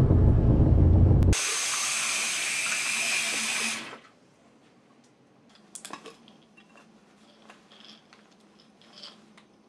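A deep low rumble for about the first second, then a bathroom sink tap running water, stopping about four seconds in. After that, near silence with a few faint clicks and rustles.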